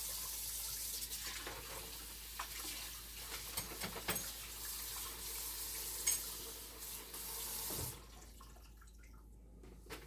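Kitchen sink tap running while hands are washed under it, with small splashes; the water is shut off about eight seconds in.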